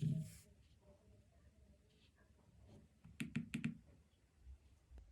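Quiet handling clicks: a soft thump at the start, then four sharp clicks in quick succession about three seconds in, and a couple of faint ticks near the end.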